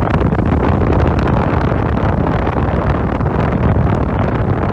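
1984 General Electric Quietaire 8,300 BTU window air conditioner running, its rotary compressor and fan making a steady, loud rush of air with a low hum underneath.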